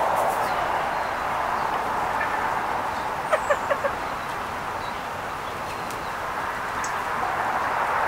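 Steady outdoor background hiss with bird calls: a quick run of about four short, clear notes a little past three seconds in, and a few faint high chirps.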